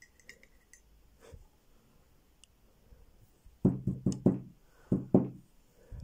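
Metal lock housing knocked several times against the table, about six sharp knocks in two quick groups in the second half, to shake loose the springs still inside. Faint clicks of tweezers on small pins near the start.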